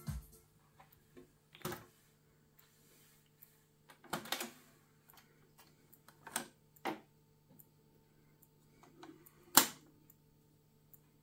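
Mechanical clicks and clunks of a Hitachi D-E95 cassette deck being stopped and its cassette ejected and pulled out by hand, then the plastic cassette being set down on the deck's top: separate clicks a second or two apart, the loudest near the end. A faint steady low hum runs underneath.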